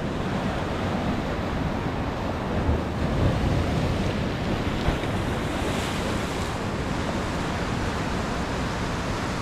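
Ocean surf breaking and washing against the boulders of a rock jetty: a steady rush that swells louder about three seconds in, with wind buffeting the microphone.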